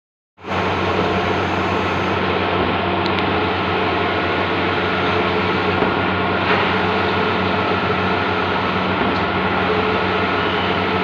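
Bluewin large-format outdoor digital printer running, a loud steady mechanical hum and whir that starts about half a second in.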